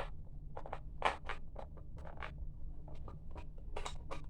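Plastic parts of a toy bubble camera clicking and scraping as they are forced shut by hand, in a string of short, irregular clicks and rubs.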